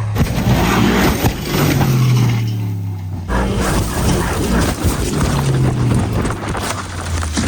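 A car tumbling and crashing down a hill: continual crunching and banging impacts of the body against the ground, over a low droning hum.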